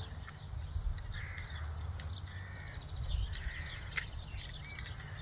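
Crows cawing several times, each call short. A single sharp click comes about four seconds in, over a steady low rumble.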